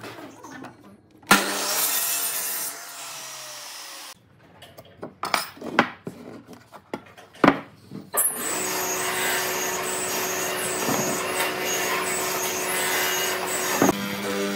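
A miter saw starts and cuts a wooden board a little over a second in, then its blade spins down with a falling whine. A few light knocks and taps of wood follow. From about eight seconds a benchtop hollow-chisel mortiser's motor runs steadily.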